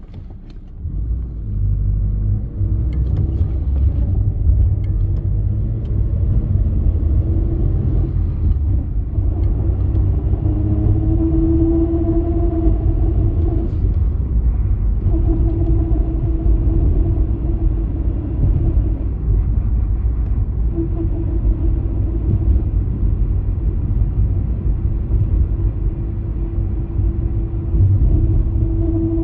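1999 Subaru Forester (manual gearbox) on the move: a steady low road-and-drivetrain rumble, with a hum that comes in for stretches of several seconds and drops away again. The hum is the noise this car makes on the gas, tied to road speed and starting around 25 mph.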